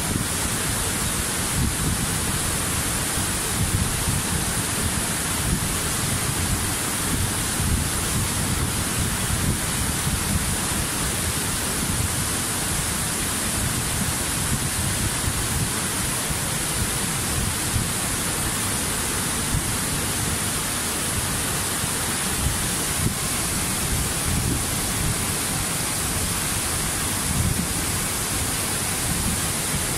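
Steady rushing water: an even, unbroken hiss with a low rumble underneath.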